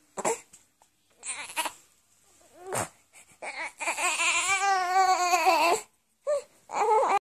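Newborn baby crying: a few short fussy cries, then one long wavering wail lasting about two seconds, then two more short cries that cut off near the end.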